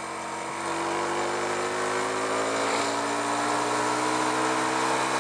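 Carburetted motorcycle engine pulling steadily, its revs rising slowly as the bike accelerates, with wind rushing over the helmet-mounted microphone.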